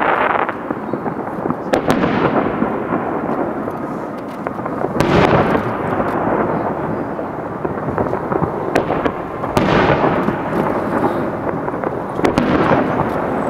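Aerial fireworks shells bursting: about five sharp bangs, each trailing off in a long rolling rumble, with smaller crackles between them.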